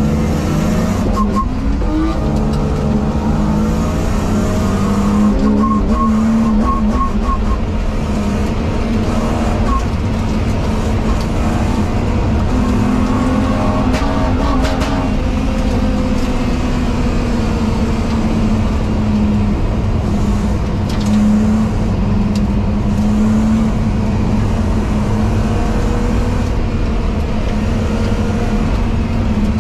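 BMW race car's engine heard from inside the cabin under hard acceleration, its pitch rising over the first couple of seconds, then running at speed on track with the revs rising and dipping through gear changes, over steady road and wind noise.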